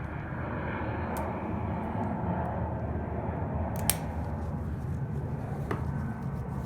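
A few sharp metal clicks, the loudest about four seconds in, from circlip pliers working the clip off the CV joint's tripod spider on the driveshaft. Under them runs a steady hiss.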